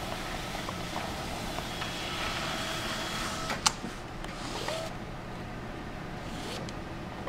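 HP Designjet 815MFP large-format printer-scanner running as a sheet moves through it: a steady motor whirr with a high whine for a second or so, a sharp click about three and a half seconds in, then two short motor whines that rise in pitch.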